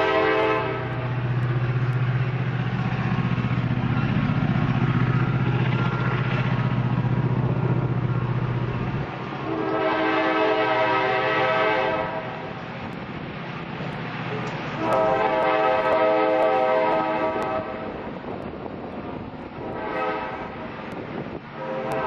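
EMD SD20 diesel locomotive passing, its engine rumbling loudly for the first nine seconds, then its air horn sounding long, long, short, long: the grade-crossing warning signal, heard over freight cars rolling by.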